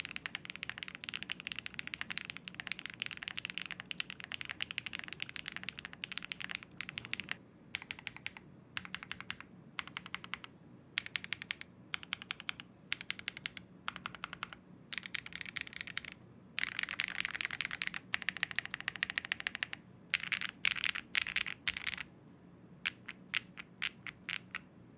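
Typing on a Zoom65 V3 mechanical keyboard built in its magnetic levitation mount. Rapid runs of keystroke clacks come in bursts with short pauses, with denser spells of fast typing in the second half.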